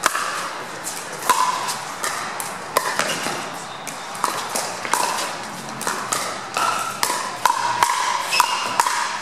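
Pickleball rally: paddles hitting a plastic pickleball back and forth, about a dozen sharp hollow pops, each with a brief ringing ping.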